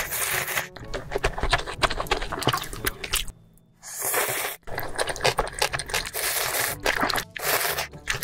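Close-miked eating sounds of big mouthfuls of food: wet chewing, crunching and slurping with sharp clicks, broken by several abrupt cuts and a short near-silent gap a little past the middle.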